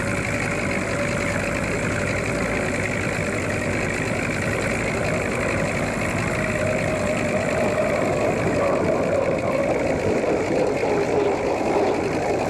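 Unlimited hydroplane race boats running at speed. Their engines make a steady drone that grows louder in the second half and drops in pitch near the end as they pass close by.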